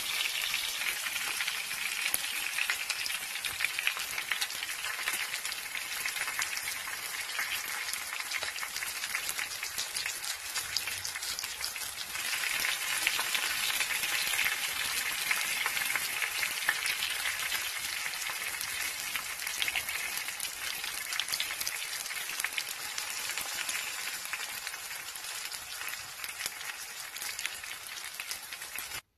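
Whole pompano pan-frying in shallow oil: the oil sizzles steadily around the fish with many fine crackling pops.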